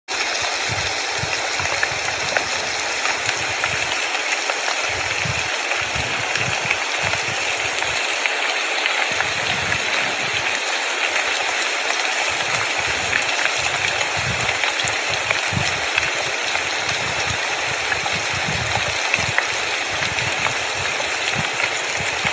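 Steady rushing hiss with a low rumble that comes and goes.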